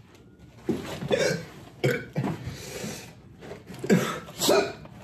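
A man's short coughing vocal bursts, about six in a few seconds: his reaction to the burn of a ghost pepper and habanero hot sauce.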